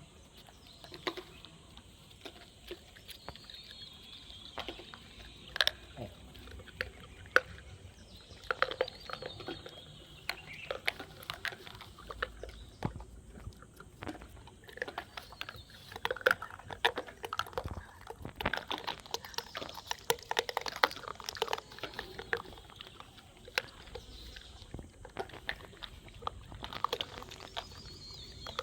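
Monkeys eating, with irregular crunching, cracking and chewing sounds, and a bird chirping now and then.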